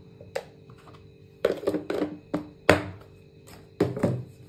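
A run of knocks and clatters from kitchen containers being handled and set down on a counter, bunched in the second half, some with a short ring. A faint steady hum runs underneath.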